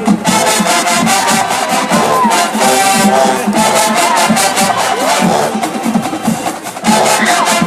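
College marching band playing, with brass on held notes over a steady drum beat and crowd noise underneath; the band drops back briefly and then comes in loud again near the end.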